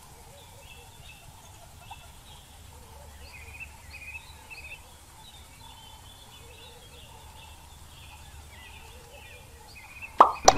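Wild birds chirping faintly among the trees over a low outdoor hiss. Near the end comes a sudden loud swoosh and click: the sound effect of a subscribe-reminder animation.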